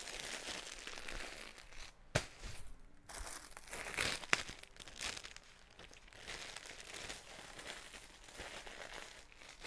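Clear plastic garment bags crinkling and rustling as folded clothes are handled and slid into them, with two sharp snaps about two and four seconds in.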